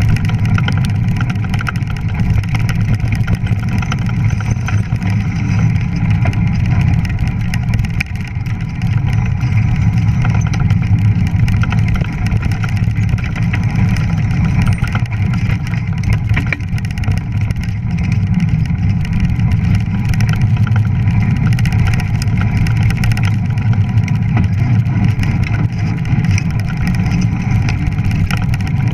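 Steady loud rumble of a fat bike ridden fast over a snowy trail: the fat tyres rolling on snow and wind rushing over a handlebar-mounted camera's microphone.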